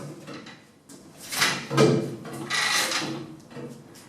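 Two drawn-out scraping, sliding sounds of about a second each, with smaller knocks around them, as a bare C5 Corvette Z06 chassis is forced under a C3 Corvette body that it does not slide under easily.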